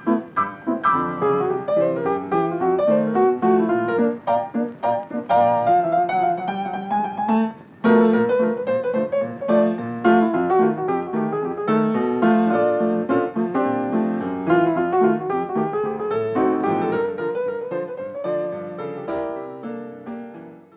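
Background music of solo piano playing a flowing melody of separate notes, with a short break about eight seconds in, fading out near the end.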